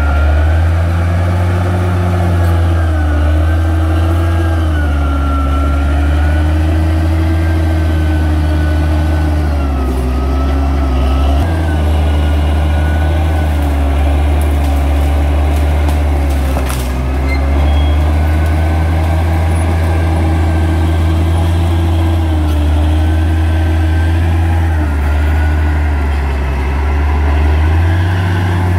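Crawler bulldozer's diesel engine running under load, its pitch rising and falling slightly as the load changes, with a few sharp clicks about halfway through.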